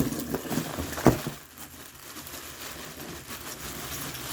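Crinkling and rustling as things are handled in a box of toy cars, with one sharp knock about a second in.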